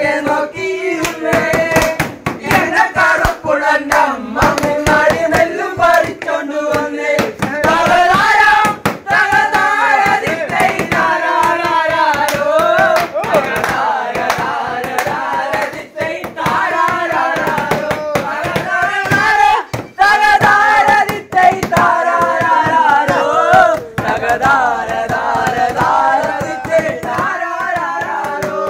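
Men singing a song together, keeping a fast beat with hand claps and slaps on the tabletop.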